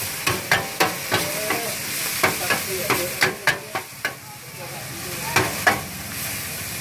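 Rice pin noodles (lot cha) stir-frying on a wide steel pan: a metal spatula scrapes and clacks against the pan about three times a second over a steady sizzle. The strokes ease off for about a second past the middle, then pick up again.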